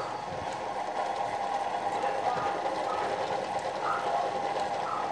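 Bench drill press running steadily as its cutter works into a metal disc clamped in a vise, a constant machine hum with a few steady tones.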